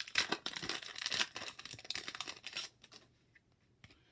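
Foil wrapper of an Upper Deck hockey card pack crinkling and tearing as it is handled and opened, a dense crackle that stops about two-thirds of the way in, followed by a few faint clicks.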